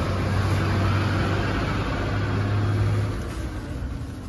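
A motor running steadily with a low hum, stopping about three seconds in.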